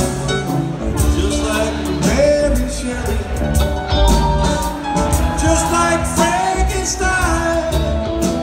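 A live rock band playing, with electric guitar, bass and drums, heard from the audience in the hall of a large theater.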